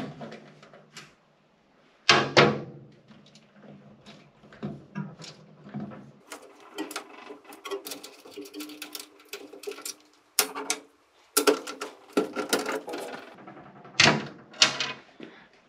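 Irregular metallic clicks and knocks from a nut driver and hardware working against the sheet-steel coin dispenser of a Rowe money changer as its top is unscrewed. There is a sharp knock about two seconds in and a dense run of small clicks in the middle.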